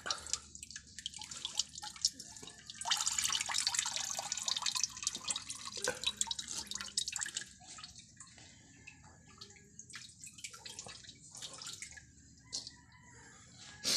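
Coconut milk running and dripping through a plastic strainer into a bucket as grated coconut is squeezed by hand. It splashes heavily in the first half, then thins to scattered drips.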